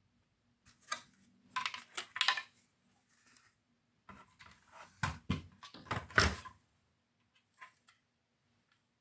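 Plastic casing and small parts of a cassette multitrack recorder clattering and knocking as they are handled during reassembly, in two bursts of handling, the loudest knocks a little past the middle.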